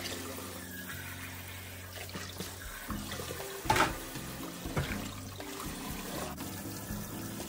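Running water, like a kitchen tap, with a sharp knock about halfway through and a few lighter knocks after it.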